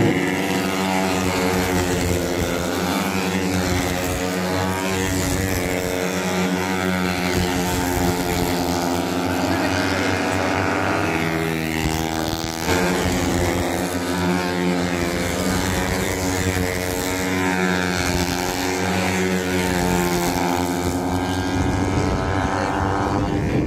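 Several racing motorcycle engines revving as the bikes lap an oval, with pitch rising and falling as they accelerate, back off and pass.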